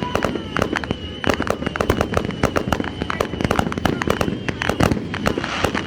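Aerial fireworks display: a rapid, unbroken string of bangs and crackles, many per second.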